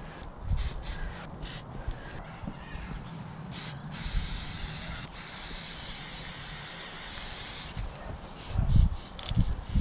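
Aerosol spray paint can spraying: a few short spurts, then one steady hiss of about four seconds that cuts off. Near the end come a few dull low thumps, the loudest sounds here.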